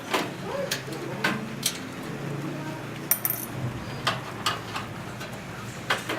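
Small metal clicks and clinks of screws and parts being handled as a desktop computer is taken apart, with a brief high metallic ping about three seconds in.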